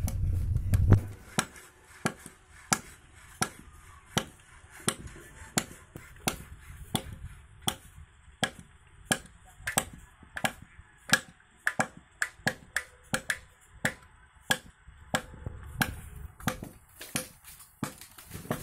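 A long series of sharp single knocks, at first evenly spaced at about three every two seconds, then quicker and less even, two or three a second, from about nine seconds in: repeated strikes of a tool.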